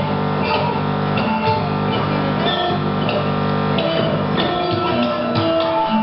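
Music with plucked and strummed guitar and sustained melody notes changing every half second or so, at a steady level.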